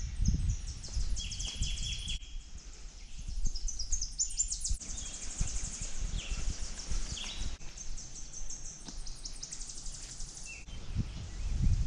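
Woodland birds singing: several high, rapid trills and repeated chirps, with a few lower whistled notes, over low thuds and rumble from walking with the camera.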